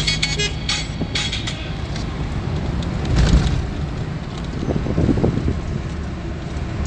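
Wind and road noise rushing in through an open car window while driving, a low rumble that swells around three seconds in and again around five.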